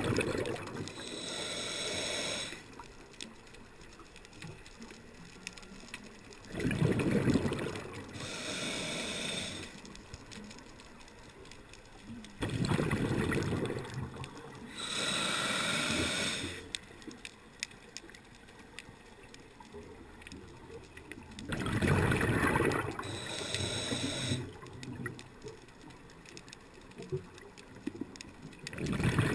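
Scuba diver breathing through a regulator underwater, four breaths about every 7 s: each a low rush of exhaled bubbles paired with a higher hiss of the inhale through the regulator.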